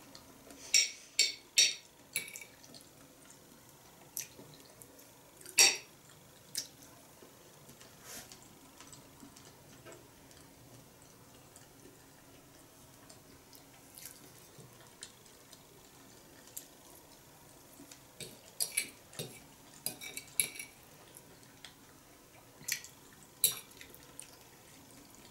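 A small fork clinking and scraping on a plate as food is cut and picked up: scattered sharp taps, a few about a second in, a single loud one near six seconds, and clusters near the end, with quiet between.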